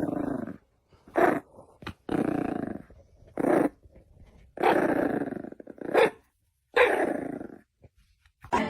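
A dog growling and barking in a run of separate calls: longer drawn-out growls, each falling in pitch, alternating with short sharp ones, about eight in all.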